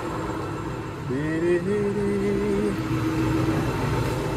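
Loading shovel's diesel engine running steadily. About a second in, a whine rises in pitch and holds for about a second and a half before dropping away.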